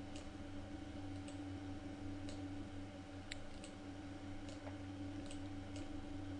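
Faint, scattered clicks of a computer mouse and keyboard, about eight of them at uneven intervals, over a steady low hum.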